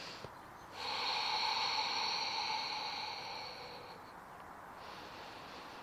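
Deep, slow breathing through the nose, picked up close on the microphone: a long, loud breath starts about a second in and lasts about three seconds, then a softer breath follows near the end.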